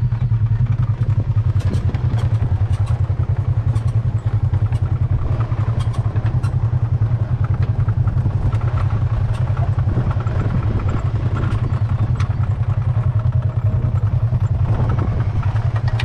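Engine of a RZR side-by-side off-road vehicle running steadily, a low pulsing drone with scattered light clatter and knocks from the moving vehicle.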